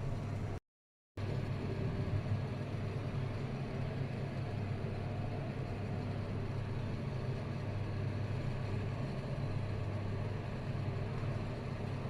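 A steady low mechanical hum over an even background noise, cut to dead silence for about half a second near the start.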